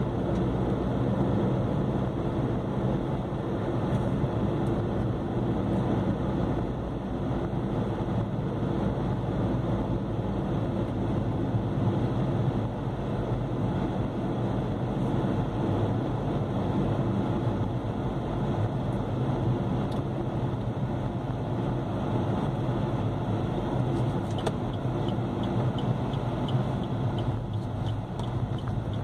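Steady engine and road noise of a moving vehicle heard from inside the cabin through the windscreen. Faint regular ticking comes in near the end.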